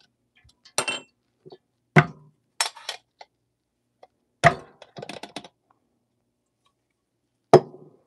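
Stainless steel dosing cup clinking and tapping against an espresso portafilter as ground coffee is knocked out of it into the basket. The sharp metal knocks come one at a time, with a short quick rattle of several about five seconds in.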